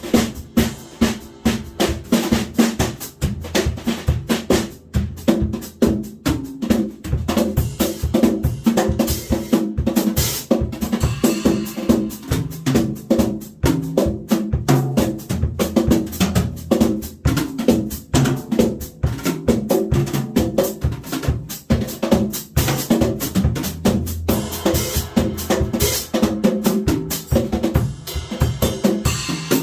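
Drum kit played with brushes: a busy, steady groove of brush strokes on the snare over bass drum beats.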